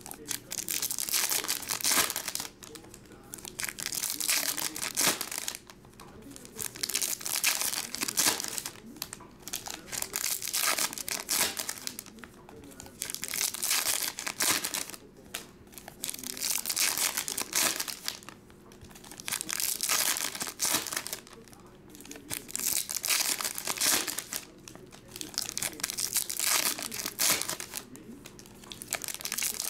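Foil trading-card pack wrappers crinkling as they are torn open and peeled back, in repeated bursts of a second or two every couple of seconds.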